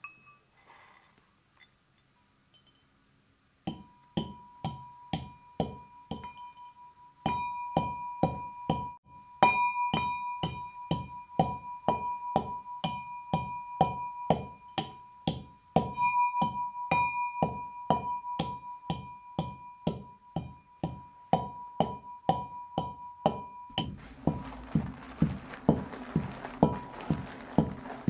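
Brass pestle pounding in a brass mortar, starting a few seconds in and keeping up a steady rhythm of about three strikes a second. Each strike leaves the metal ringing with a bell-like note.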